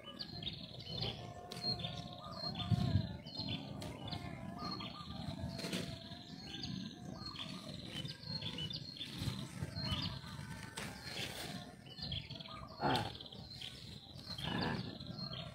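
Small birds chirping over and over in short, high, falling calls, over the rustle of leafy plants and a few soft bumps.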